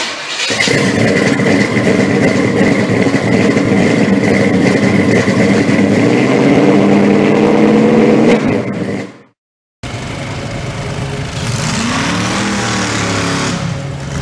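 Rat rod pickup's engine held at high revs during a burnout, with a steady high-pitched tyre squeal over it, cutting off suddenly about nine seconds in. After a brief gap, cars and trucks drive past, one engine revving up and back down.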